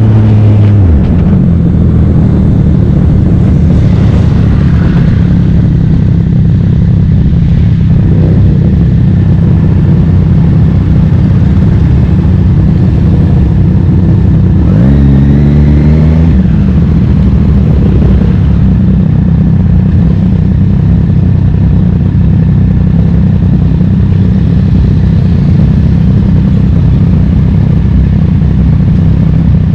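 Racing motorcycle engine running hard at steady high revs. Its note falls in the first second, then dips sharply and climbs back about halfway through, as at a gear change.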